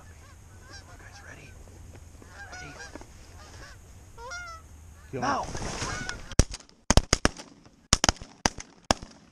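Geese honking as a flock comes in, the calls growing loud about five seconds in. From about six seconds in, a rapid volley of a dozen or so shotgun blasts as several hunters fire together at the passing geese.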